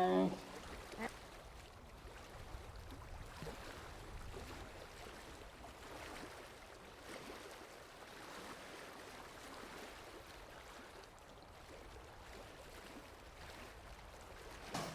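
Faint, steady outdoor ambience with no clear source. In the first moment, the tail of a loud, wavering animal call cuts off.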